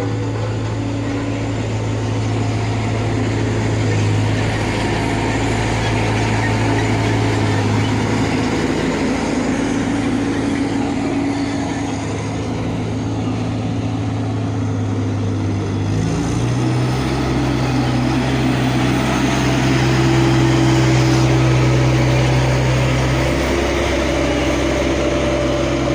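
Road roller's engine running steadily; its note changes about sixteen seconds in, settling to a different, deeper-sounding hum.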